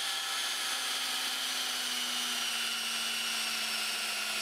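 Electric drill running steadily at high speed, boring a deep pilot hole for a butt-plate screw into a wooden rifle stock. Its whine sags slightly in pitch near the end.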